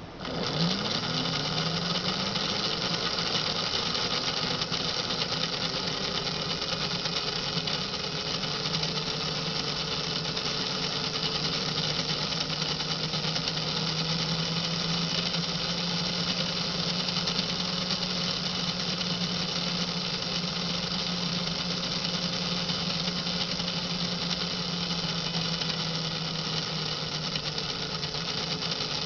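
Lionel postwar GG1 2332 locomotive motor with its worm-gear drive, switched on and spinning up within about a second. It then runs at a steady speed with a constant hum, the wheels turning freely off the track.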